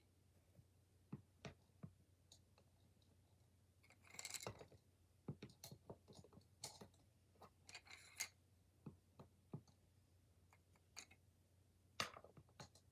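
Quiet, scattered clicks and light knocks of pencils being set down and arranged in a pencil box, with brief scraping rustles about four and eight seconds in.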